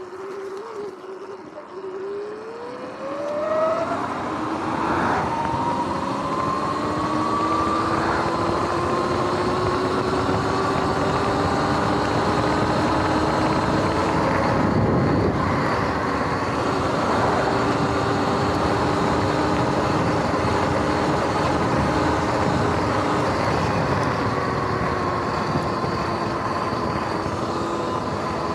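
Sur-Ron X electric dirt bike's motor whining, rising quickly in pitch as it accelerates over the first few seconds, then holding a steady, slowly climbing whine at speed over a constant rushing noise.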